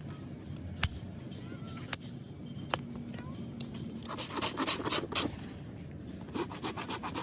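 A hand tool scraping against an overgrown horse hoof during trimming: a few sharp single clicks about a second apart, then two runs of quick scraping strokes, the longer one about four seconds in.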